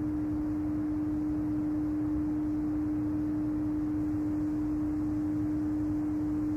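A single low pure test tone held perfectly steady, even and without fluctuation, played into one ear: the first of the two tones of a Hemi-Sync binaural-beat demonstration.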